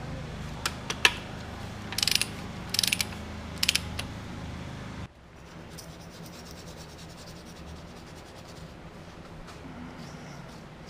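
Hand ratchet clicking in three short quick runs, after a few single clicks, over a steady low hum. About five seconds in the hum cuts off, leaving quieter shop room tone.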